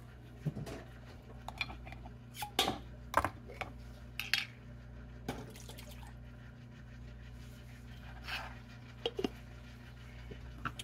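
A glass jar and utensils knocking against a steel stockpot as a jar of tomatoes is emptied into simmering bean soup: a string of scattered clinks and knocks over a steady low hum.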